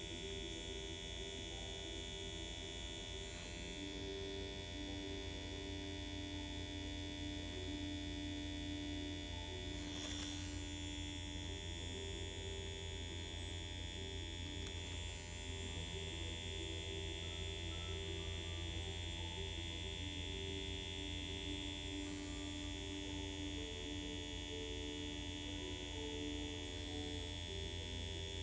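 Permanent-makeup machine (rotary PMU pen) buzzing steadily as it runs while nano brow strokes are worked into the skin.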